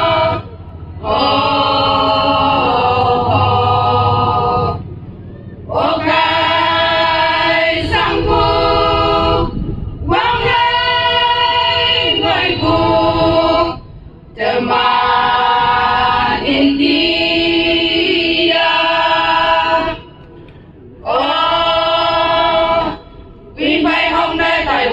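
A group of women singing together without instruments, amplified through microphones, in sung phrases with held notes broken by short pauses for breath.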